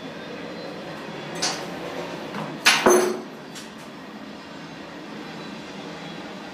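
A light clink, then a sharp metallic clank with a brief ring a little later, the loudest sound, followed by a faint tick, over a steady background hiss.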